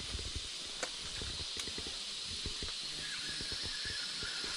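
Steady hiss of rushing river water, with a quick, irregular run of soft low thuds and splashes from feet wading through the shallows. A faint thin whine joins about three seconds in.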